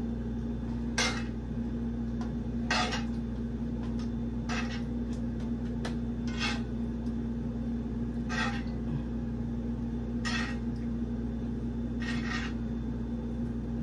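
Seven short scrapes of a utensil against a cooking pot, about two seconds apart, as cooked shrimp are scooped out into a bowl. A steady low hum runs underneath.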